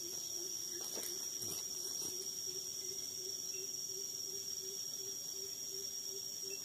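Insects trilling steadily: one unbroken high-pitched tone, with a lower wavering tone beneath it and a few faint knocks about a second in.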